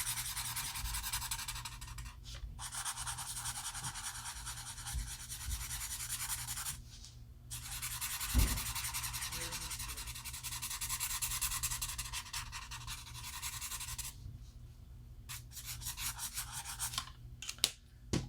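Ohuhu alcohol marker tip scratching across paper in quick, fine back-and-forth strokes, with two short breaks. A low thump comes about eight seconds in, the strokes stop about fourteen seconds in, and a few light clicks follow near the end.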